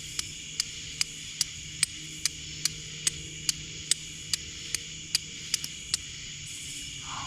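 Steel striker scraping down a flint in quick, even strokes, about two and a half sharp clicks a second, stopping about six seconds in, over a steady chorus of night insects.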